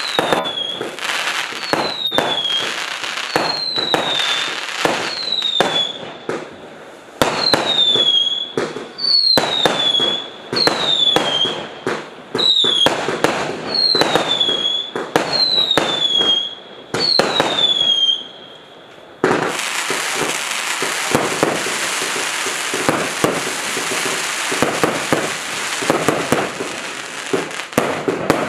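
Multi-shot fireworks cake firing shot after shot, about one a second: each launch pop is followed by a short whistle falling in pitch. About two-thirds of the way in, this gives way to a dense, continuous crackling from crackling-rain effects.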